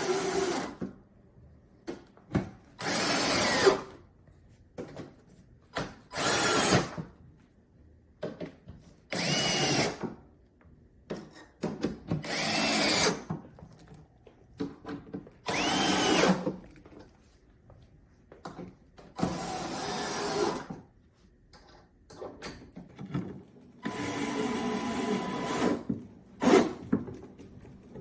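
Cordless drill-driver driving assembly screws in repeated short bursts, about nine in all, each spinning up and winding down, with quiet pauses between them.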